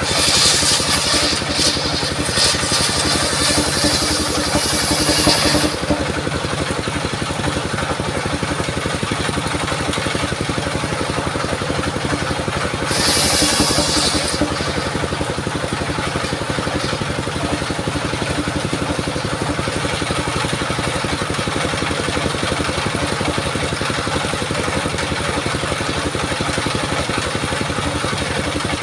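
Engine-driven circular sawmill running steadily, its blade cutting into mahogany with a loud, hissing whine for the first six seconds and again briefly about thirteen seconds in.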